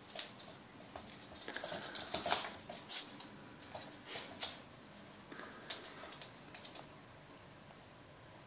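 Border terrier puppy's claws clicking and skittering on a laminate floor as it scampers about: irregular quick taps, busiest about two seconds in.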